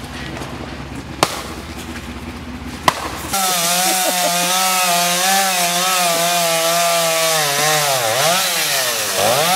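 A chainsaw cutting through an ice-coated fallen tree branch. After a quieter stretch with a few knocks, the saw comes in loud at full throttle about three seconds in and runs steadily, its pitch dipping twice near the end as it works in the cut.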